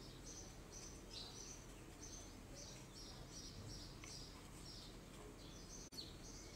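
Faint chirping of small birds, a quick run of short high chirps several times a second, over a low steady background hum.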